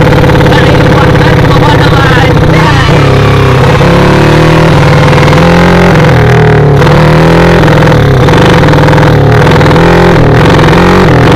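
Small drag-bike motorcycle engine running loud while riding. Its pitch rises and falls as the throttle is worked.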